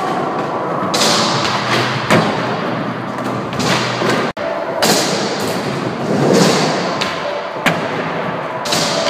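Skateboard wheels rolling over plywood ramps and floor, with a handful of sharp thuds and clacks as the board is popped and landed.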